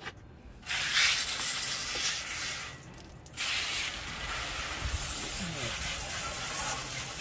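Garden hose spray nozzle spraying water onto a soapy metal smoker to rinse it. The hiss starts just under a second in, stops briefly about three seconds in, then runs on steadily.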